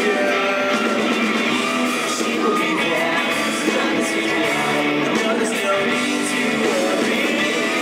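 Live pop-rock band playing loudly over a PA, with guitar and singing.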